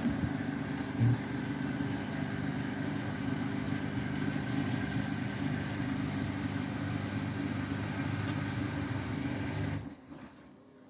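Beko WTK104121W washing machine topping up with water during its rinse: a steady rush of incoming water with a low hum, cutting off suddenly near the end as the fill stops.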